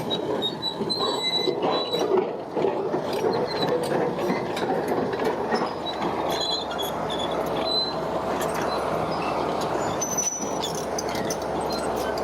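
Heavy earth-moving machinery at work: a steady engine din with frequent metallic clanks and short high squeals throughout.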